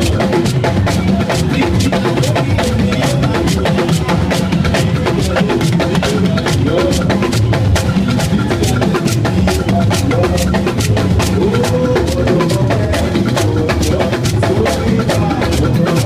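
Live church band music: fast, dense drumming and hand percussion with a man singing over it through the sound system.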